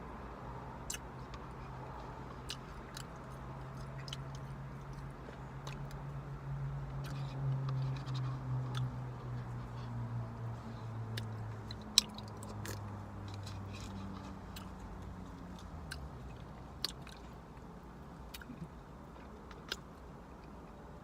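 Close-up chewing and mouth sounds of someone eating chicken noodle soup, with scattered sharp clicks, the loudest about twelve seconds in. A low hum runs underneath, swelling in the first half and fading after about sixteen seconds.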